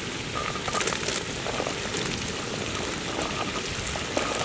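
Hot oil sizzling steadily in a large wok as chopped shallots are tipped in from a steel bowl, with a few small crackles.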